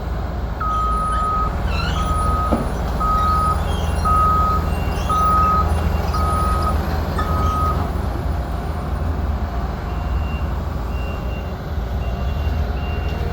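Heavy vehicle's engine running steadily with its reversing alarm beeping, seven beeps about one a second that stop about eight seconds in. A fainter, higher-pitched beeping starts about ten seconds in.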